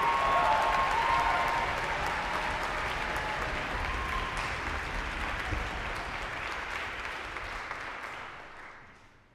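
Audience applauding, the clapping steady at first and then dying away near the end.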